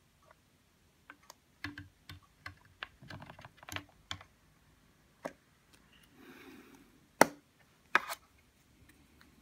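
Hands handling computer hardware: a run of small irregular clicks and taps, a brief rustle, then two loud sharp clicks a little under a second apart near the end.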